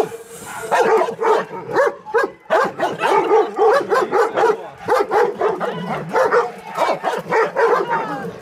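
Dogs barking rapidly and aggressively, about three or four barks a second, in a confrontation between a pit bull, a German shepherd and a tan mastiff-type dog that turns into a scuffle.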